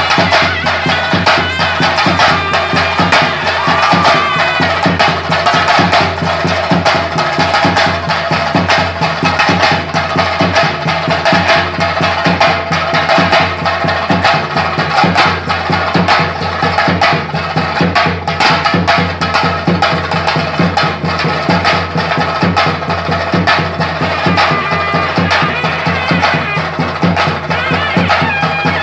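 Chenda drums beaten with sticks in a fast, unbroken roll, with a kuzhal's reedy melody over them: the chenda melam that accompanies a Theyyam dance.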